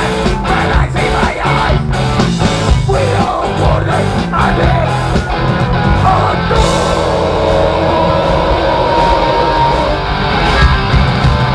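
Punk rock band playing live: electric guitars, bass and drums with a singer's vocals, loud throughout. About six and a half seconds in, the sharp drum hits thin out under held guitar and vocal notes.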